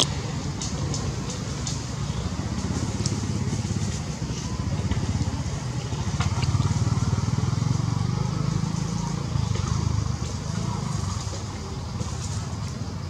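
Low engine hum of passing motor traffic, swelling louder in the middle, with scattered faint clicks above it.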